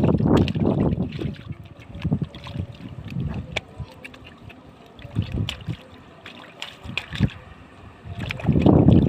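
Shallow flood water sloshing and splashing, with heavy splashes at the start and again near the end and lighter splashes and drips between.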